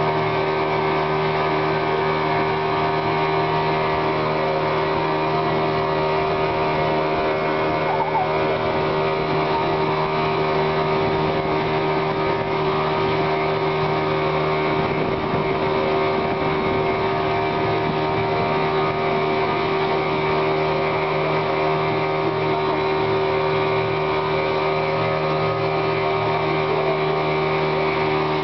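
Outboard motor of a small passenger boat running steadily at a constant speed, a continuous drone that does not change pitch.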